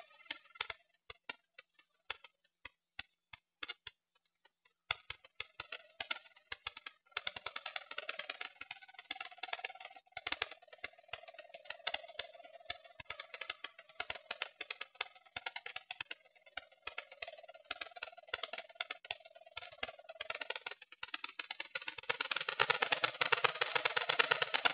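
In-flight audio from a small keychain camera on an electric model glider: dense crackling with a steady hum that comes in a few seconds in and drops away near the end, then louder rushing noise.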